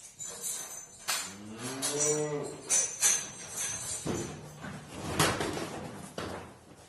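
Cattle mooing: one long call that rises and then falls in pitch, then a lower call about four seconds in, with a few sharp clatters among them.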